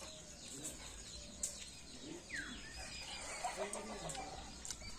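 Chickens clucking, with a short falling bird call about halfway through.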